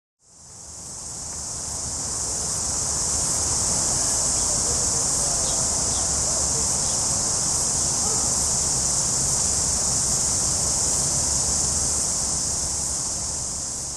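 Cicadas singing, a steady, high-pitched, shrill chorus that fades in over the first couple of seconds and fades out near the end.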